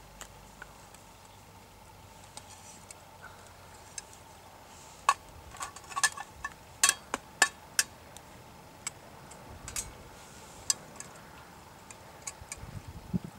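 Small wood fire in a folding metal firebox crackling: irregular sharp pops and ticks, thickest a third of the way in and then sparser.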